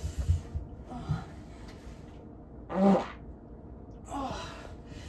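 A single short, pitched release of body gas a little under three seconds in, the loudest sound here. Soft rubbing and knocking come near the start.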